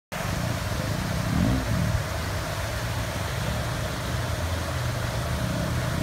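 2004 Jeep Wrangler Rubicon's 4.0-litre straight-six running at low revs while crawling through a rocky water channel, with a brief rev up and back down about a second and a half in. Steady rush of flowing water underneath.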